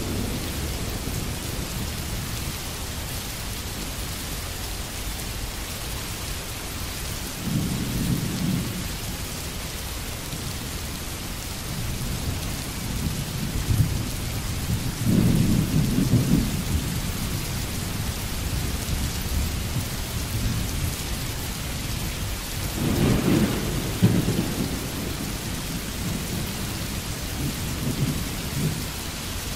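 Steady rain with a constant hiss, and low rolls of thunder several times: a short one about 8 seconds in, a longer one around the middle, and another about 23 seconds in.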